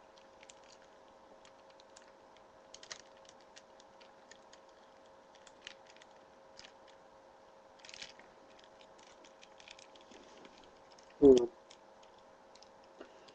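Scattered light clicks and taps of a plastic action figure's parts being handled and pressed into place, with a short vocal sound from the person about eleven seconds in.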